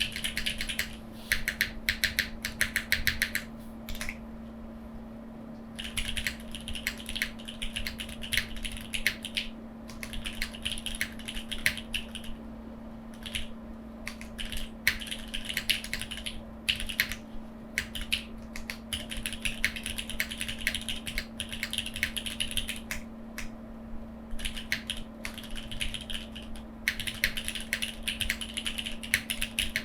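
Typing on a mechanical keyboard with Cherry MX2A Black linear switches, GJ Japan keycaps and no case foam: runs of fast key clacks broken by short pauses. A faint steady hum lies under it.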